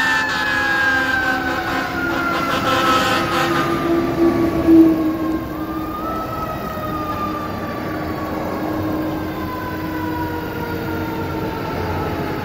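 Fire engine siren winding down in a long falling wail, briefly winding up again about halfway through and then falling slowly once more, over the steady noise of highway traffic.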